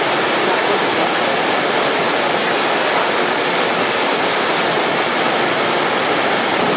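Steady hiss of a high-pressure fog system's misting nozzles spraying water mist overhead.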